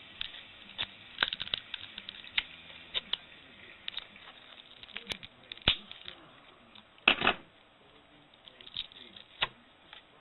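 Hand tools prying at a Motorola Razr phone's casing and screen: irregular clicks, snaps and scrapes of small plastic and metal parts, with the loudest cluster of snaps about seven seconds in.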